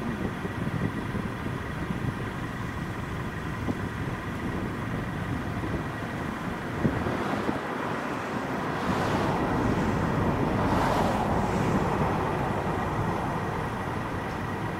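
Business jet's turbofan engines during landing, a steady rush of jet noise that swells about two-thirds of the way through as the jet rolls out on the runway, then eases off near the end.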